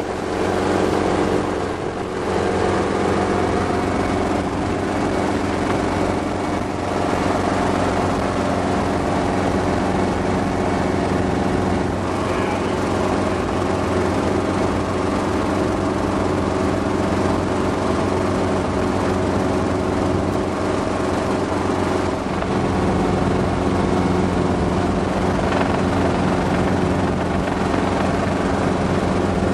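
Hughes 269A piston helicopter in flight, heard from inside its open cabin: the four-cylinder piston engine and rotors drone steadily over a broad rush of air.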